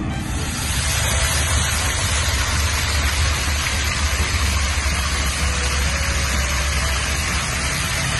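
Water jets of a stone fountain splashing steadily into its basin, a dense hiss with a low rumble beneath, starting abruptly.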